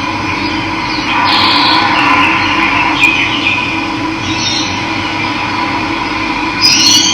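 Steady rush of running water with birds chirping over it, several short high calls, the loudest just before the end.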